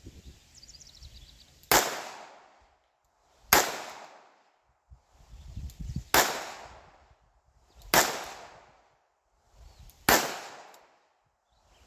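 Five shots from a Smith & Wesson Airweight five-shot revolver fired at a steady pace, about two seconds apart, each with a short echoing decay. It is loaded with light hand-loaded 100-grain polymer-coated practice rounds.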